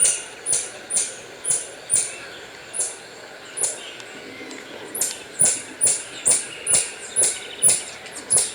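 Marmoset calling: a string of short, very high-pitched calls that drop in pitch, about two a second. After a brief lull in the middle they come faster.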